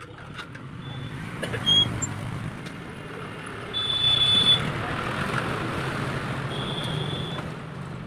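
A TVS commuter motorcycle's engine running as the bike rolls in and comes to a stop. Brief high-pitched squeals are heard a few times, the loudest about four seconds in.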